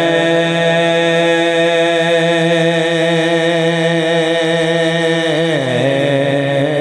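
A man singing a naat into a handheld microphone, holding one long note for about five seconds, then sliding down to a lower note near the end.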